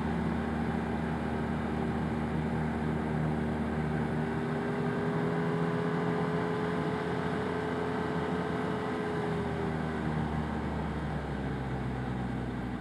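Arctic Cat Wildcat Trail UTV engine running steadily under way, with the engine speed easing off slightly near the end.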